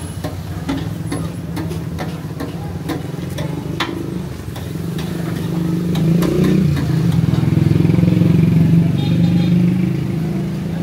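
A motor runs with a steady low hum that grows louder for a few seconds past the middle. Light knocks and clinks sound over it, mostly in the first half.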